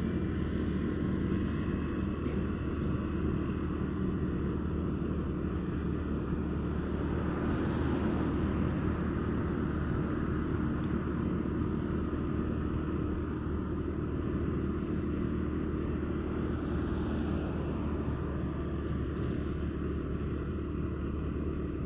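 Steady engine hum with road and wind noise from a motorcycle cruising along a road. The noise swells briefly as a car passes close alongside.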